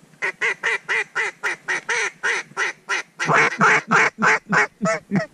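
Duck call blown in quacks: a quick, even run of about a dozen short quacks at roughly four a second, then louder, longer, lower quacks over the last two seconds.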